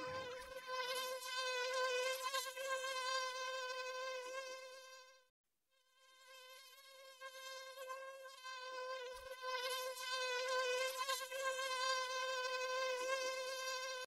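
A mosquito's whining buzz, a steady hum that wavers slightly in pitch, cutting out for about a second midway and then coming back.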